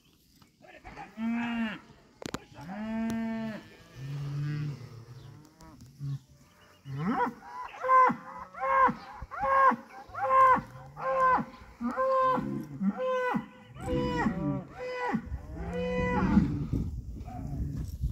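Cattle mooing: two long moos in the first few seconds, then a quick run of about a dozen shorter, higher bawls less than a second apart, with a low rumbling noise building underneath near the end.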